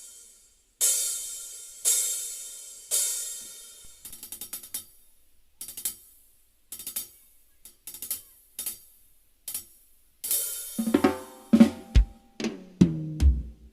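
Live drum kit played through a PA sound system: three crash cymbal hits ringing out, then quick hi-hat and snare hits with gaps between them. Near the end the full band comes in, with kick drum and pitched low notes under the drums.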